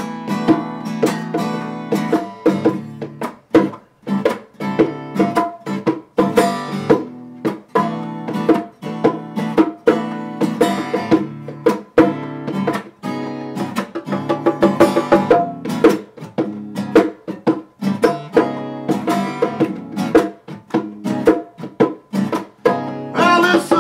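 Acoustic guitar strummed and picked in an instrumental passage, with bongos played by hand; the strokes come in a quick, steady rhythm.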